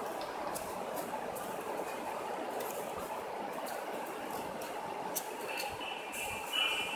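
A sheet of paper folded and creased by hand, with faint crinkles and ticks over a steady background hum. A faint high tone comes in near the end.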